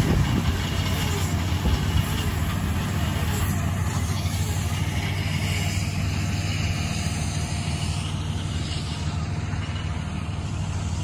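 Tractor engines running steadily under load, a low continuous drone that eases slightly over the last few seconds.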